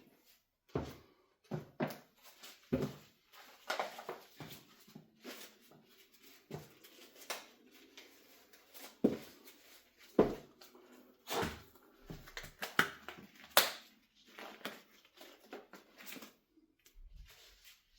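Irregular knocks, clatters and rustles of objects being handled, a second or two apart, with quiet gaps between.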